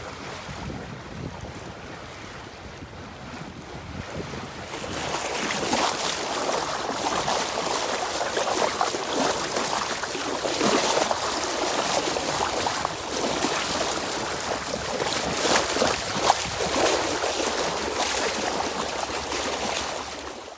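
Water rushing and splashing along the hull of a J/24 sailboat under way, with wind buffeting the microphone. Quieter at first, louder and more splashy from about four seconds in.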